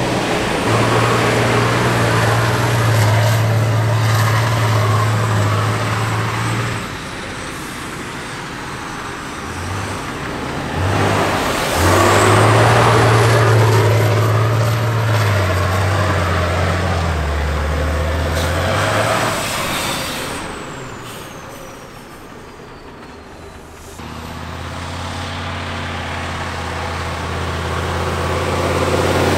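Heavy 6x6 off-road trial trucks' diesel engines revving hard and labouring under load, the engine note rising and falling, with a quieter stretch a little past the middle before a loud engine comes back in.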